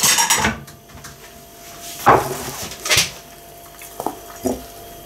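Kitchen handling sounds: a clatter of dishes at the start, then knocks as a saucer is set down on the table about three seconds in, and a couple of light taps near the end.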